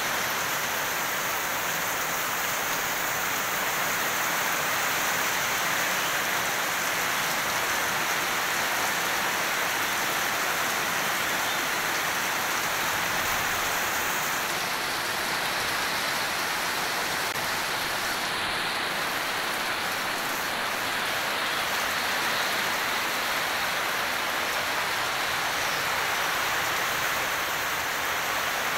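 Heavy rain pouring steadily onto leafy plants, an even, unbroken patter of a downpour.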